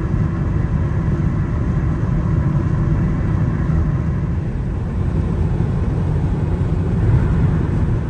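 Steady road and engine noise inside a van's cabin driving at motorway speed, a constant low rumble with tyre hiss above it.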